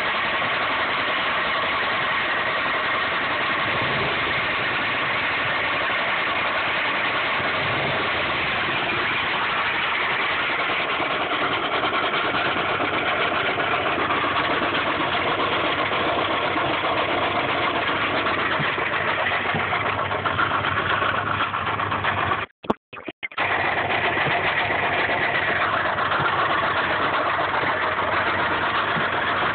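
1995 Subaru Impreza's flat-four boxer engine running steadily with a rod knock that has persisted through an oil change and oil additives.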